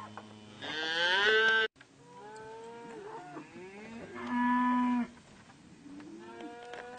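Cattle mooing, several calls. A loud moo rising in pitch comes about a second in, and a loud steady lower moo comes around the middle, with fainter calls between and near the end.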